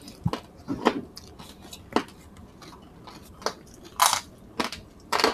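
Close-up eating sounds: chewing of crunchy roast pork, with scattered sharp clicks, smacks and crunches and one louder crunch about four seconds in.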